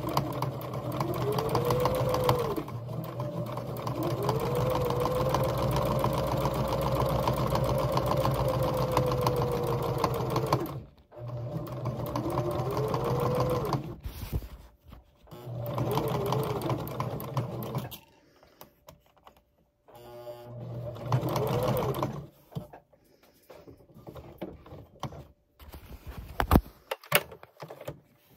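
Electric domestic sewing machine stitching a seam in five separate runs, the motor speeding up and slowing down with each press of the pedal; the longest run lasts about eight seconds. Near the end, only a few light clicks and knocks as the fabric is handled.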